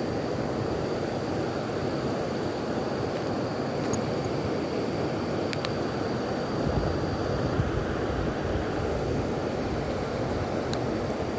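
Steady rushing of fast-flowing, rain-swollen stream water, with a few faint clicks.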